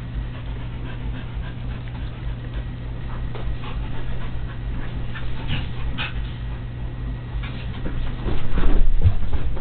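An Akita puppy and a Belgian sheepdog play-wrestling on a bed: dog noises with scattered rustling of the bedding, louder and busier about eight seconds in.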